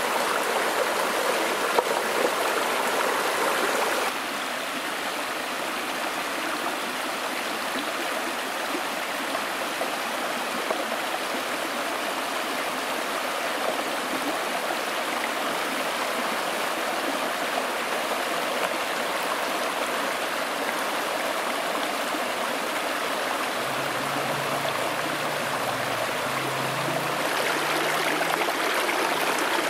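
Shallow mountain stream rushing and splashing over a line of stacked stones: a steady, dense water noise that drops a little in level about four seconds in.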